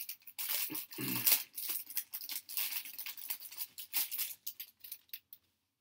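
Plastic-foil wrapper of a baseball card pack crinkling and tearing as it is opened by hand: a dense run of crackles lasting about five seconds.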